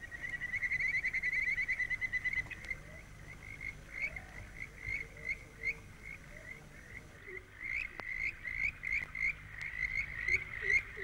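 Frogs calling at night: fast runs of short high chirps, then more spaced-out calls repeating steadily. There is one sharp click about eight seconds in.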